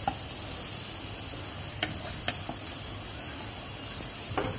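Sliced onions sizzling steadily in hot oil in a nonstick pan, fried to light brown, with a few short spatula taps against the pan.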